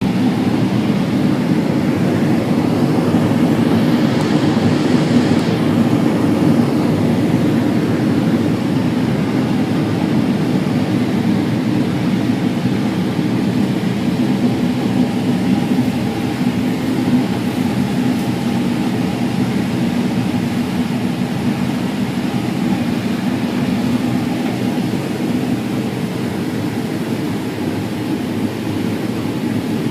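Combine harvester running steadily as it harvests corn: a continuous heavy machine drone, with a brief rise in hiss about four seconds in.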